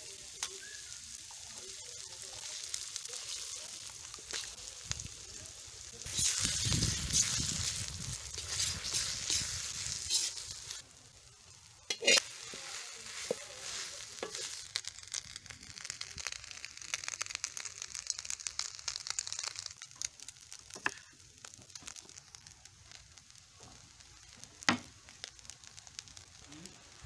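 Chopped vegetables and then cold cooked rice sizzling in oil in a metal wok, stirred with a spatula; the frying is loudest from about six to ten seconds in. A few sharp knocks stand out, the strongest about twelve and twenty-five seconds in.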